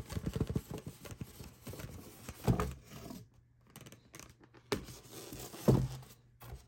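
Styrofoam insert scraping out of a cardboard box in a rapid stutter, then two dull knocks against a wooden table about two and a half and five and a half seconds in, with light cardboard clicks between.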